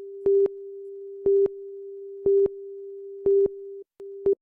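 Countdown leader tone: a steady tone with a louder beep once a second, five beeps in all, marking off the countdown numbers. The steady tone breaks off briefly just before the last beep.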